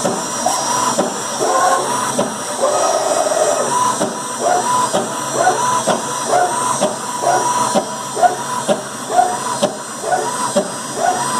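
CNC router's drive motors whining through rapid back-and-forth test moves: short rising chirps, about two a second, over a steady hiss.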